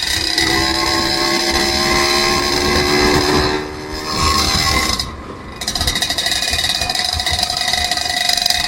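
A vehicle's engine and drivetrain running steadily, with several high whining tones. The sound drops away briefly twice, about three and a half and five seconds in.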